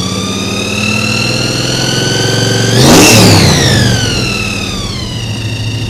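Supercharged ('wicked blower') engine revved once from idle. The blower's whine rises over about three seconds, is loudest about three seconds in, then falls back to a steady idle.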